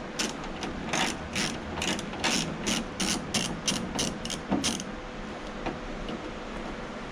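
Hand ratchet clicking as a bolt on the car door's locking mechanism is undone, a run of about a dozen sharp clicks, roughly three a second and a little quicker towards the end, that stops about five seconds in.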